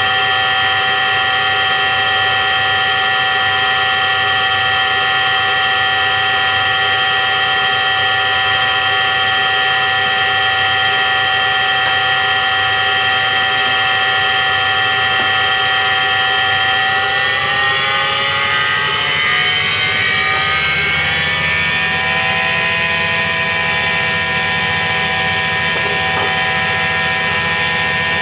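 Washing machine drum spinning with the hum and whine of a failing drum bearing. About seventeen seconds in the pitch falls as the drum slows, then holds steady at a lower speed.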